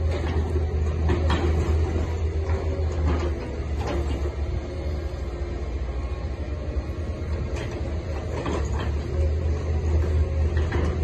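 Tracked excavator's diesel engine running steadily as it digs in a ship's cargo hold, a deep drone with scattered short knocks from the working machinery.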